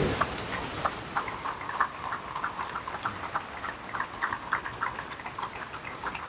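Audience applause thinning to scattered, irregular hand claps, several a second.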